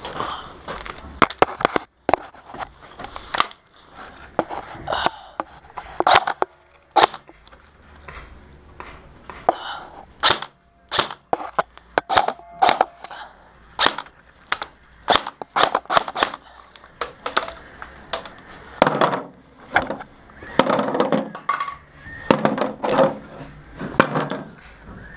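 Airsoft rifle fire: irregular sharp cracks, single shots and quick strings of several, from rifles shooting out of a cinderblock room.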